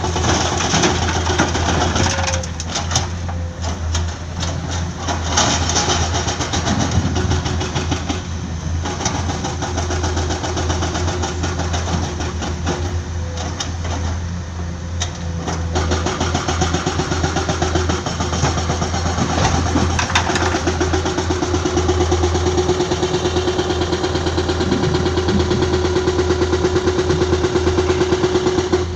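Diesel engine of heavy earthmoving machinery running steadily with an even, fast pulse, louder and rougher for a few moments in the first third.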